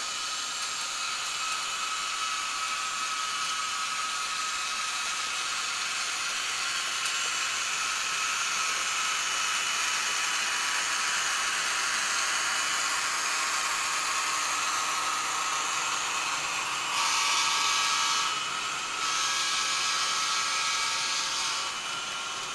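SD40-2 diesel dynamic-brake sound from a Digitrax SDH164D sound decoder in an HO-scale locomotive: a steady whirring hiss of the brake grid blowers. It swells briefly about three quarters of the way through, then dips for a moment before settling back.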